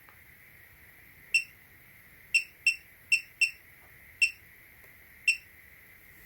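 Short electronic beeps from a bench DC power supply as its voltage is stepped with the encoder knob or buttons, seven beeps of the same pitch at irregular intervals, a few in quick succession in the middle.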